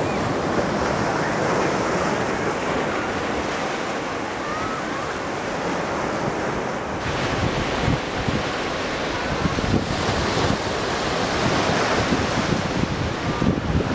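Sea surf breaking and washing up the shore in a steady wash. From about halfway through, wind buffets the microphone in low gusts.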